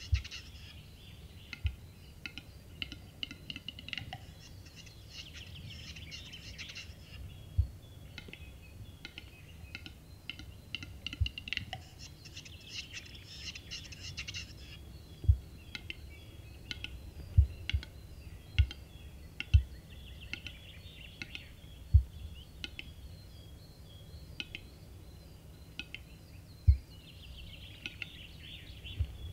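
Male western capercaillie's display song: runs of dry clicks leading into scratchy, hissing whetting phrases two to three seconds long, repeated four times. A dozen or so sharp low thumps are scattered through it and stand out as the loudest sounds.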